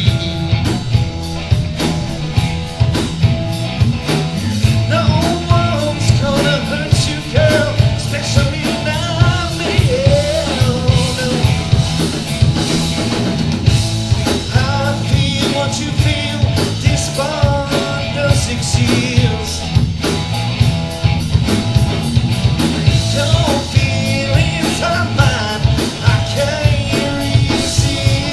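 A rock band playing live and loud: a steady drum beat and heavy bass, with a singer's voice over them.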